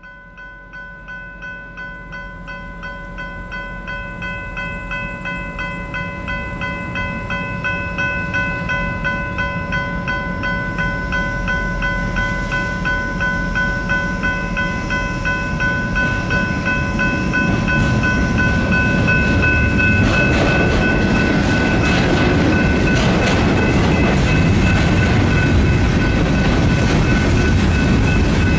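Railroad grade-crossing bell ringing with an even, rapid beat while a freight train shoves its cars toward the crossing. The train's rumble grows steadily louder, and from about twenty seconds in the cars roll over the crossing with a clatter of wheels on rail joints.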